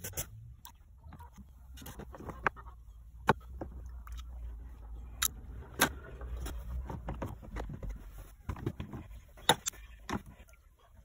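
Rusty metal hand-drill parts being handled in plastic tubs of soapy water: a string of sharp knocks and clicks of metal against plastic over a low rumble, with sloshing as a part is worked in the suds near the end.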